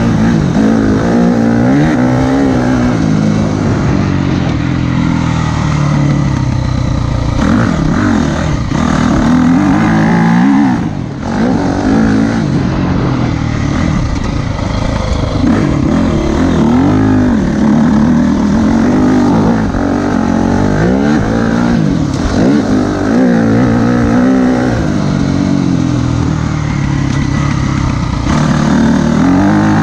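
Motocross dirt bike engine being ridden hard, the revs rising and falling again and again as the throttle is opened and rolled off through the gears and corners. The throttle is shut briefly about eleven seconds in, then it pulls hard again.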